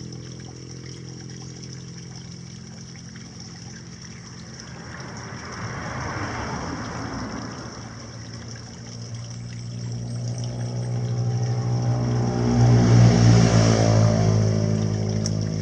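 A motor vehicle passes, its engine hum building to its loudest about 13 seconds in, over trickling water.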